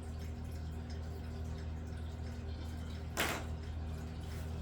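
Steady low electrical-sounding hum, with one short, sharp scratchy burst about three seconds in.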